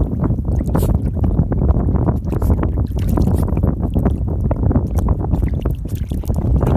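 Wind buffeting the microphone in a steady low rumble, with small splashes and sloshing of shallow water as a dog wades and noses around in it.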